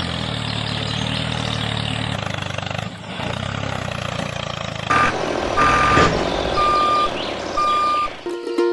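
Vehicle engine running steadily, with a reversing alarm beeping four times about a second apart from about five seconds in.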